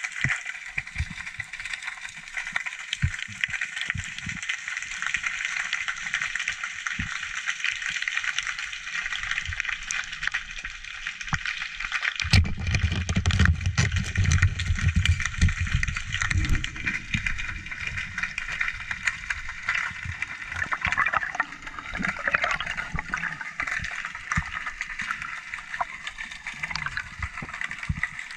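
Underwater sea noise, a steady crackling hiss. About twelve seconds in, a sharp click as the 70 cm Sigalsub Nemesis speargun with a single 16 mm band fires, followed by a few seconds of low churning rumble in the water.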